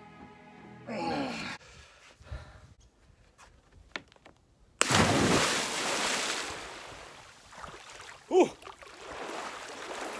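Background music ends about a second in with a short sighing voice. After a few faint clicks, a sudden loud rushing noise starts near the middle and slowly fades, and a brief gasp comes near the end.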